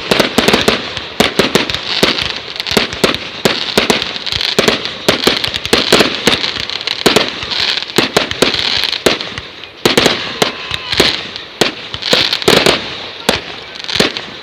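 Fireworks going off in a dense, continuous barrage: sharp bangs several times a second over a steady crackling hiss.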